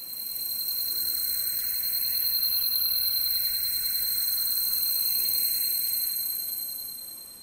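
Steady high-pitched electronic ringing tone, several high pitches held together over a faint hiss. It swells in at the start and fades out near the end.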